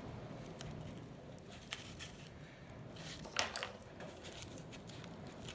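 Light, scattered clicks and taps of a pointed tool being worked into an aluminium-foil sculpture, with one sharper tap about three and a half seconds in.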